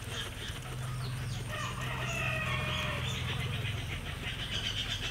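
Guinea pig chewing and nibbling a blade of fresh grass, with bird calls in the background.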